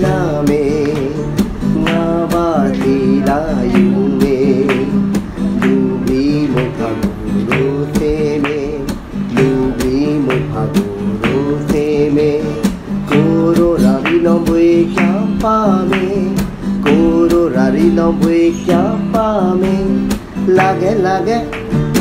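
Background song: a voice singing a wavering melody over steadily strummed guitar.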